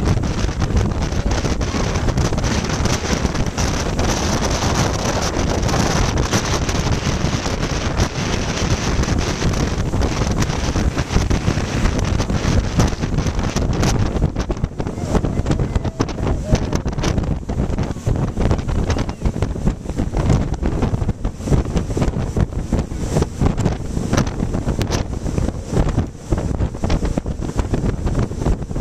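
Loud wind buffeting the microphone on an open jet boat under way, over the steady noise of the boat's engine and water rushing past the hull.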